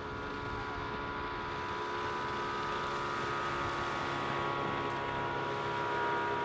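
Speedboat engine running steadily across the lake, heard from a distance, growing slightly louder.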